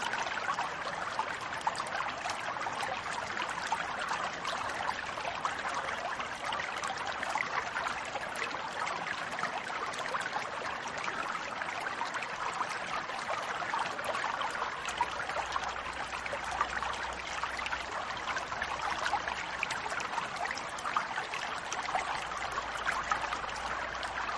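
A stream babbling: steady running water with many small splashes and gurgles.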